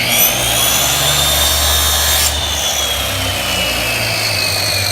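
Electric woodworking saw switched on and cutting: a loud motor whine that climbs as it spins up, then sags slowly in pitch as the blade works through the wood of the box sides.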